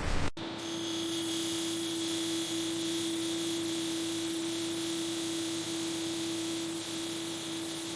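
A steady hum: one mid-pitched tone over hiss, starting after an abrupt cut about a third of a second in.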